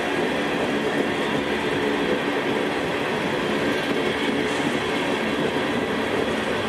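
Freight train's cars, tank cars and gondolas, rolling past: a steady, even rumble of steel wheels on rail.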